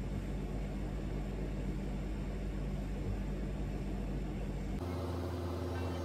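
Steady low electrical hum with a background hiss, and no other event. About five seconds in, the hum's tone changes abruptly.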